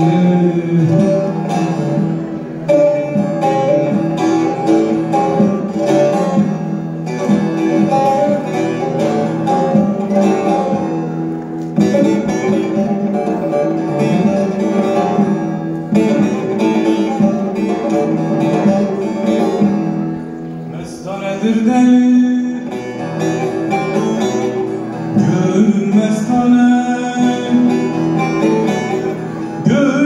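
Bağlama (long-necked Turkish saz) played solo with quick plucked notes, and a man's voice singing along with it, clearest in the last third.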